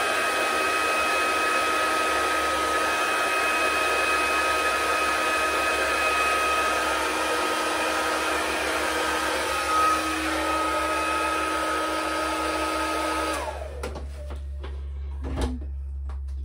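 Hair dryer running steadily with a whine, blowing wet acrylic paint across the canvas in a Dutch pour. Near the end it is switched off and its whine falls away as the motor spins down, followed by a short click.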